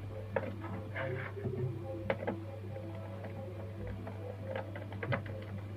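Scattered small clicks and taps of pliers or a spanner turning the mounting nut of a portable speaker's microphone-volume potentiometer, over a steady low hum.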